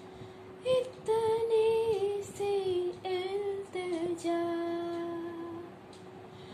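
A young girl's solo voice sings a wordless melodic phrase over a single steady held backing note. After a short note just under a second in, she moves through several brief notes and settles on a long held note that fades out about a second before the end.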